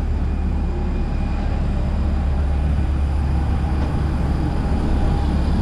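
Steady low rumble of airport apron noise: parked jet aircraft and ground equipment running.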